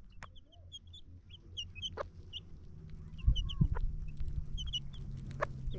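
Chickens clucking with many short high chirps, with a few sharp knocks. A low steady hum comes in about halfway.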